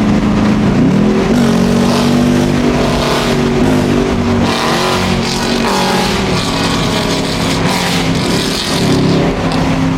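Car engine running while driving, its pitch holding steady for stretches and then gliding up and down several times as the revs change.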